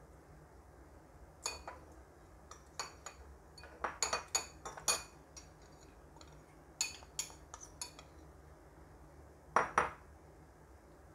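Metal spoon clinking and scraping against a bowl and plate in irregular sharp clicks, with a cluster about four to five seconds in and another near the end.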